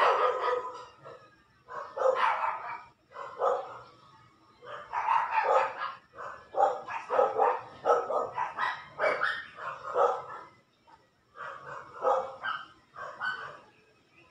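A dog barking over and over in quick, uneven runs, with a short lull near the end.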